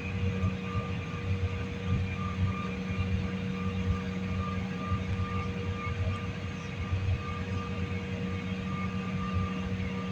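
Steady drone of an airliner's engines heard from inside the passenger cabin: a low rumble under a few steady tones, with no rise or fall.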